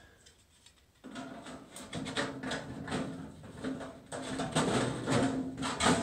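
Sheet-metal S cleats being slid and pushed onto the edges of a galvanized rectangular duct: metal scraping and clicking on metal over a steady low tone, starting about a second in.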